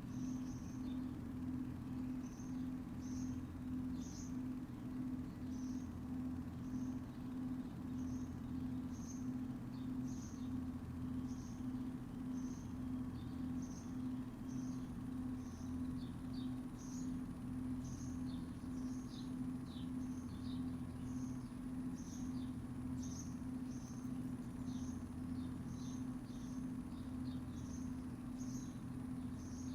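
A bird repeating a short, high chirp over and over, about once a second, over a steady low hum. A faint, steady high whine comes in about ten seconds in.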